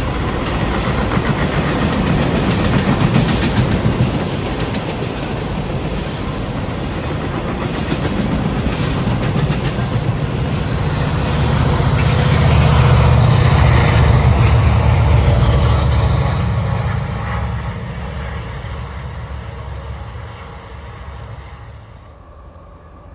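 Train rolling past, its wheels clicking over the rail joints. The rumble swells to its loudest about halfway through, then fades away near the end.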